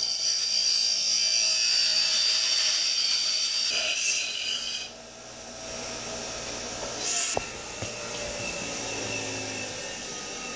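Bench grinder wheel grinding the cut end of a metal hanger arm, rounding off its edges: a harsh, steady grind for about five seconds. The piece then comes off the wheel and the grinder keeps running unloaded with a lower, steady hum, with one click partway through.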